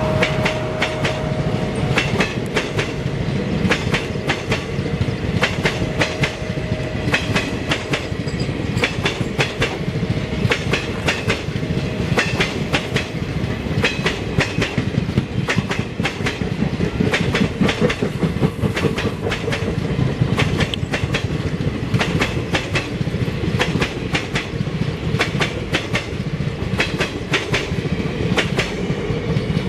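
Blue passenger coaches of a long train rolling past at close range: the wheels click and clatter over the rail joints in a fast, irregular run of knocks over a steady low rumble.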